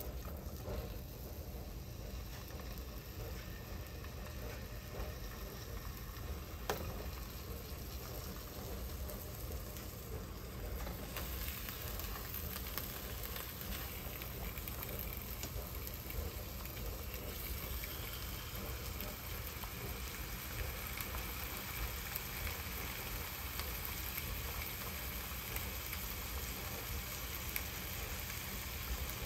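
Boneless tilapia frying in butter in a pan, a steady sizzle that turns brighter and hissier about eleven seconds in. One sharp tap about seven seconds in.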